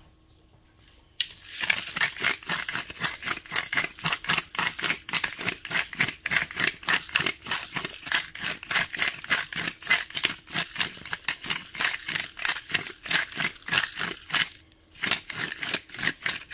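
Hand-held metal pepper mill grinding black peppercorns: a fast, steady run of gritty, crunching clicks that starts about a second in, stops briefly near the end, then starts again.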